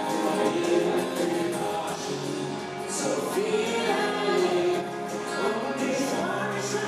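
Live band music: a woman singing into a microphone over acoustic guitar, electric bass and drums.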